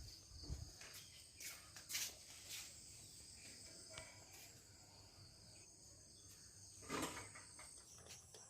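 Insects, likely crickets, chirring in a faint, steady, high-pitched drone, with a few scattered knocks.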